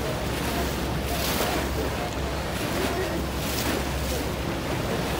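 Boat engine running with a steady low hum, over water rushing and splashing along the hull in repeated surges, with wind on the microphone.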